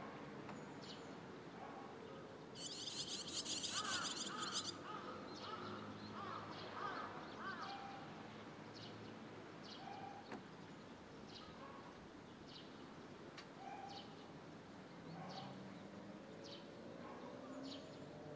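Barn swallow fledglings on a wire giving short, high chirping calls every second or so, over a steady background hum. About three seconds in, a louder, high, rapid buzzing trill lasts about two seconds.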